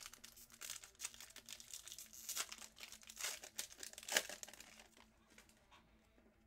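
Foil wrapper of a Contenders Draft football card pack crinkling and tearing as it is ripped open by hand, with the loudest rip about four seconds in. The crackle dies away about a second later.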